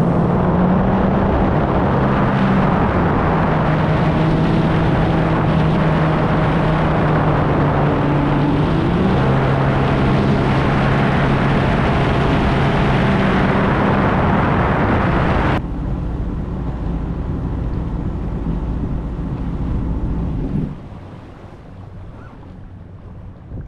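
Sea-Doo personal watercraft running at speed with wind on the microphone, its engine pitch stepping up once. About two-thirds of the way through, the high rush cuts off suddenly as the throttle comes off. A few seconds later the sound falls away further as the craft slows.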